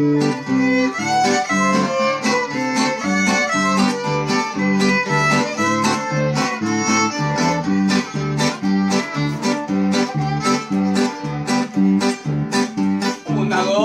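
Instrumental band passage: two fiddles bowing the melody over a plucked electric bass line and a strummed guitar, in a steady, bouncing rhythm.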